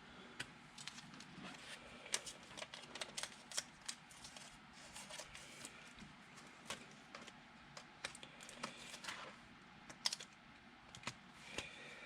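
Light, irregular clicking and tapping, a few sharp clicks a second, from small objects being handled at close range.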